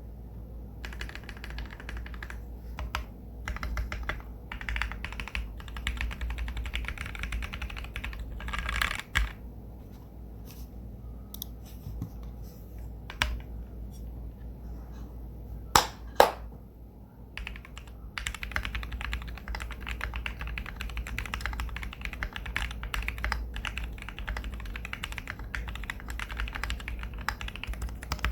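Typing on a custom 60% mechanical keyboard with lubed Gateron KS-3X47 black linear switches, PBT keycaps and a polycarbonate plate in an aluminium case: fast, steady key clacks. Midway the typing slows to scattered keystrokes, with two louder single strikes, before fast typing resumes.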